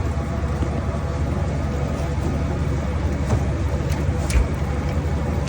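Steady low mechanical hum from running machinery, with a few light clicks about three and four seconds in.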